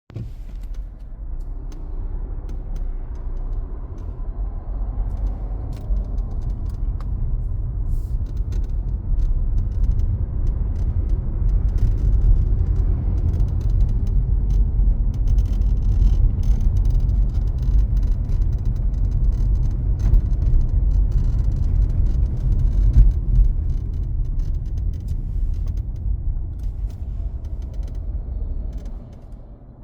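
Cabin of a 2023 Mazda CX-5 on the move: steady low road and tyre rumble, with many short creaks and clicks coming from around the windshield. The rumble falls away shortly before the end.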